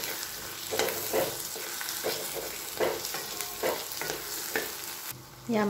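Wooden spatula stirring potato chunks through masala paste frying in oil in a stainless steel kadhai: scraping strokes against the pan, about one or two a second, over a steady sizzle. The sizzle drops away a little after five seconds.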